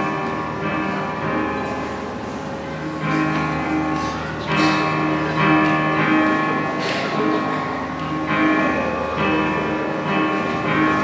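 Live music with strummed guitar playing held chords that change every second or so.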